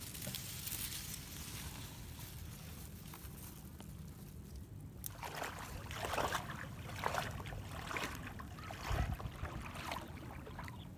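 A person wading through knee-deep floodwater: irregular splashing and sloshing of the legs pushing through the water from about five seconds in, with a heavy thump near nine seconds. Before that, a softer steady hiss.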